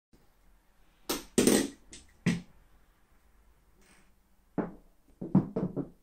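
A series of short, sharp knocks and clacks in two clusters: three or four about a second in, then another burst of several close together near the end.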